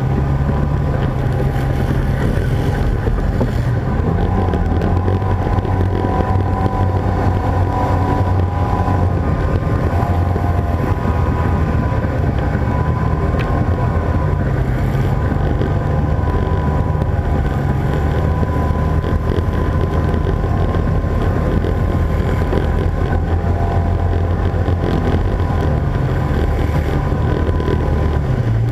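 ATV engine running steadily while riding a dirt trail, with a low hum that steps down in pitch about four seconds in and comes back up near the end.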